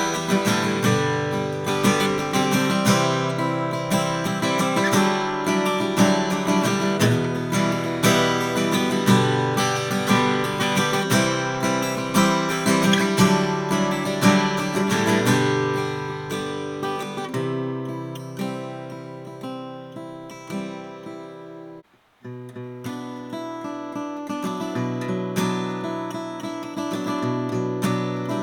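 1959 Gibson LG2 flat-top acoustic guitar strummed and picked in chords. The playing grows softer partway through, stops for a moment about three quarters of the way in, then picks up again.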